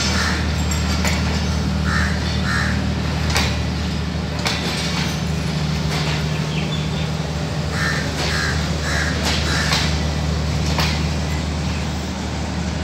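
Steady low hum of a Pakistan Railways power van's diesel generators as the carriage rolls slowly past, with a few sharp clicks of wheels over rail joints. Crows caw in short pairs several times over it.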